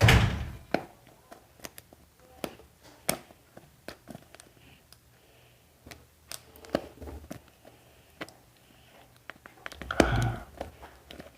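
Fingernails picking and scratching at the plastic seal on a powder tub: scattered sharp clicks and short scrapes, with a louder handling knock right at the start and another about ten seconds in.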